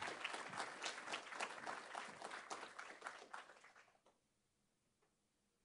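Audience applauding, the clapping dying away and stopping about four seconds in.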